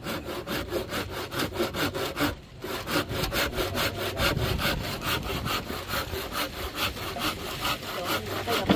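Handsaw cutting through a bamboo pole in rapid, even back-and-forth strokes, about five a second, with a short pause about two and a half seconds in.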